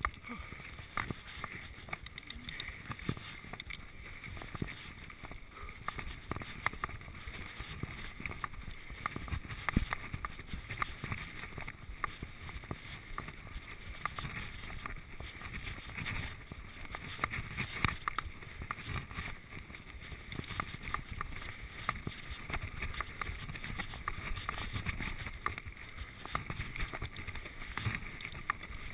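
Giant Trance full-suspension mountain bike riding over a rough dirt and grass trail: a continuous rumble of tyres on the ground, broken by frequent small knocks and rattles from the bike as it goes over bumps.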